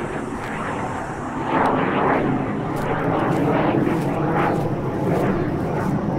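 Military plane flying overhead: a steady rushing engine noise that swells about one and a half seconds in and stays loud.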